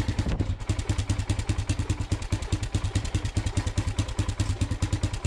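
2005 Polaris Predator 500's single-cylinder four-stroke engine idling steadily while still cold, with an even beat of about nine firing pulses a second.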